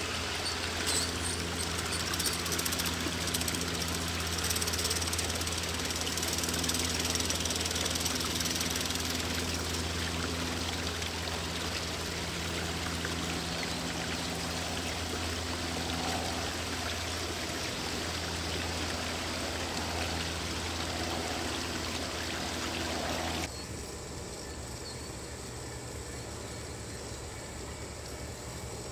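G-scale model passenger cars rolling across a trestle: a steady rolling hiss of wheels on track with a low hum underneath. It drops suddenly to a fainter, more distant rolling sound about 23 seconds in.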